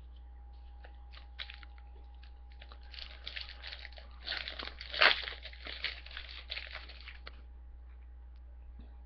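A trading-card pack's wrapper being torn open and crinkled: a few light clicks, then a run of crackling from about three seconds in until past seven, loudest around five seconds.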